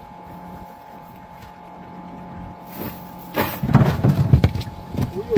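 Rustling and knocking handling noise close to the microphone, starting about three seconds in and loud and irregular from then on, over a faint steady hum.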